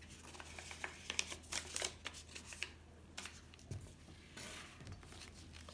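Crinkling and crackling of a sheet of 600-grit sandpaper being handled and folded, with a short stretch of hissing rubbing near the end as the paper is worked over painted steel.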